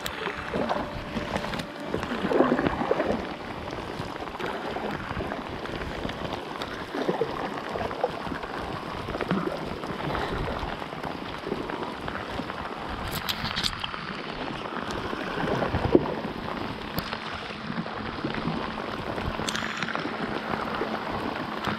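Stand-up paddleboard paddle strokes pulling through river water, with irregular splashes and gurgles over a steady water hiss; the loudest splash comes about sixteen seconds in.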